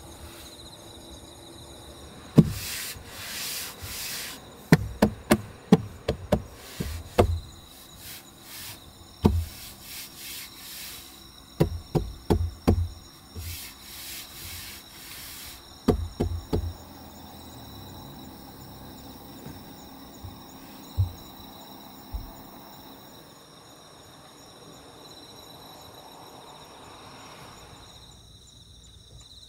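Wooden fold-out table being set up, its boards and legs knocking and sliding into place in a run of sharp clacks and rubs that thin out about halfway through. Crickets chirp steadily in the background.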